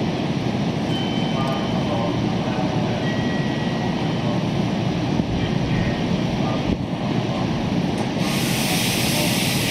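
Meitetsu 5700 series electric train standing at the platform with its onboard equipment running steadily. About eight seconds in, a loud hiss of compressed air starts suddenly and keeps going.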